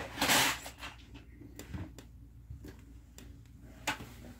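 A short rustle near the start, then scattered light clicks and knocks of plastic pieces being handled.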